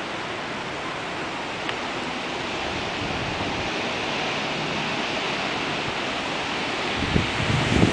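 Dust-storm wind blowing, a steady rushing hiss. About seven seconds in, gusts begin buffeting the microphone with low rumbles.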